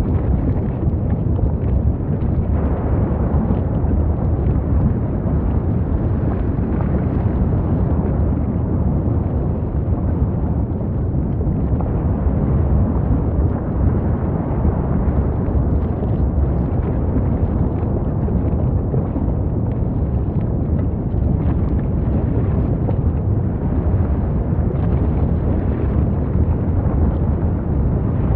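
Volcanic eruption: the lava fountain of an erupting volcano gives a loud, continuous deep rumble that holds steady throughout.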